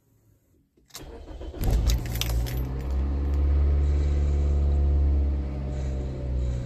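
Toyota Corolla Altis engine being started: about a second in the starter cranks with a clatter of clicks, then the engine catches and idles steadily with a faint whining tone over it. The owner blames the wheezing at start-up on low power steering fluid.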